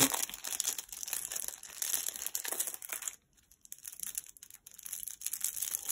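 Clear plastic packet crinkling and crackling as a small tassel is unwrapped by hand, with a short lull a little past halfway.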